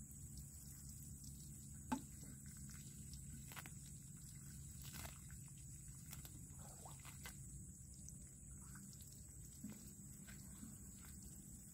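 Near silence: faint outdoor background with a steady low rumble and a thin high hiss, scattered soft ticks, and one sharp click about two seconds in.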